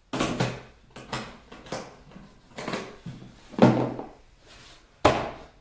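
A box being opened and its contents handled: a series of sudden scrapes, knocks and rustles, the loudest about three and a half and five seconds in.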